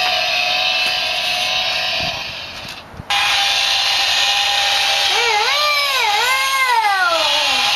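Steady chainsaw-like buzzing that fades out about two seconds in and starts again a second later; near the end a wavering, rising-and-falling pitched tone joins it and then slides downward.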